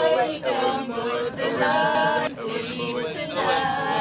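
Several voices singing together, unaccompanied.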